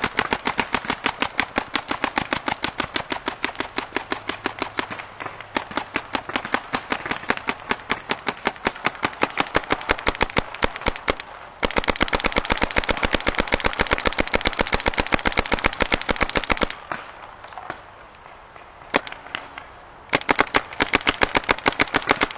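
Planet Eclipse Gmek mechanical paintball marker firing rapid strings of shots, as fast as a finger can work its slide trigger, with a few short pauses and a sparser stretch near the end. The marker is being shot until its hopper runs dry of paint.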